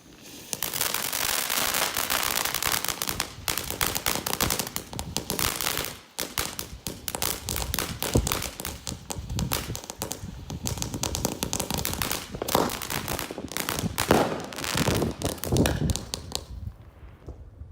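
Consumer fireworks from an Original Pro Box 3 assortment going off: rapid crackling and popping with sharper bangs among it. There is a brief gap about six seconds in, and it dies away near the end.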